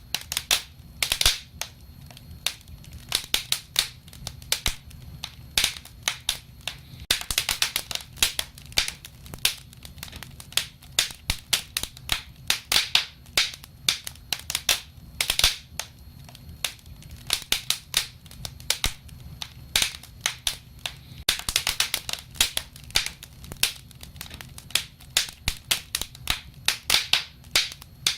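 Wood fire crackling and popping: irregular sharp snaps of burning wood over a low steady rumble of flames, with brief flurries of rapid crackles twice.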